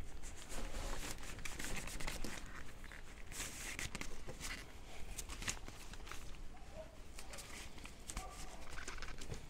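Nylon fabric of a Trekmates Squall Pro bivi bag rustling and crinkling as it is handled and its pole worked into place, with scattered small clicks and scrapes; the busiest rustling comes about three to four seconds in.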